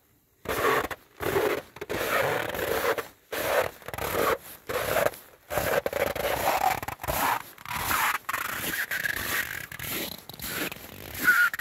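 Boots crunching on wind-packed snow in bitter cold (−16 °F), one footstep after another at a steady walking pace, about one step every 0.7 seconds.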